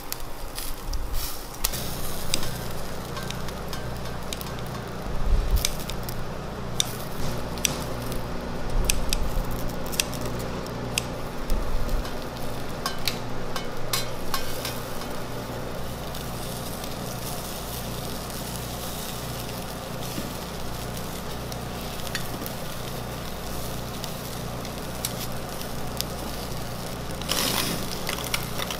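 Chicken pieces sizzling on a wire grill over charcoal, with crackles and sharp clicks of metal tongs turning the meat, mostly in the first half. A low steady hum runs underneath, and near the end a brief louder rush as fat drips onto the coals and the fire flares up.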